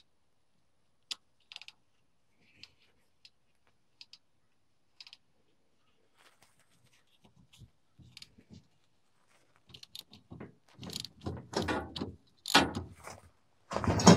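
Socket ratchet clicking and steel tools clinking as a nut is worked on the slipper clutch shaft: scattered light clicks at first, then quicker, louder ratcheting and clanking over the last few seconds.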